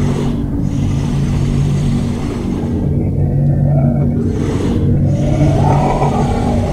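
Soundtrack of a low, steady droning rumble with slow rising and falling tones above it, and two whooshes: one at the very start and one about four and a half seconds in.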